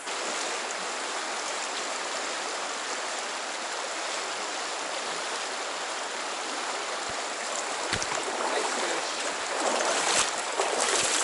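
Stream water running steadily, growing a little louder near the end, with a few faint knocks.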